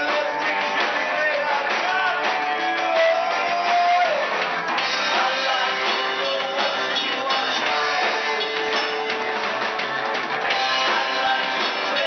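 Live rock-and-roll band playing at full volume: electric guitars, electric bass and a drum kit, with a singer at the microphone.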